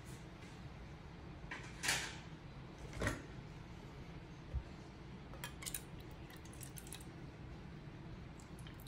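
Light handling of an opened tin of wet cat food and a small bowl on a counter: two short scrapes about two and three seconds in, a dull thump, then a run of small clicks, over a low steady hum.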